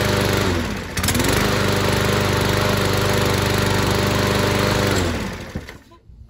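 125cc Briggs & Stratton single-cylinder engine on a walk-behind lawn mower running steadily at speed. It dips briefly in speed and picks back up sharply about a second in, then winds down and stops near the end.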